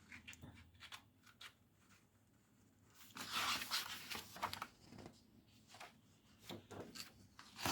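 Magazine pages being turned and handled: a faint papery rustle for about two seconds starting some three seconds in, with a few light taps and clicks before and after.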